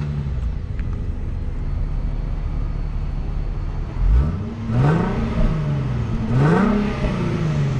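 Infiniti Q50S's V6 engine idling, heard close to the tailpipes, then revved twice about halfway through, the pitch rising and falling each time.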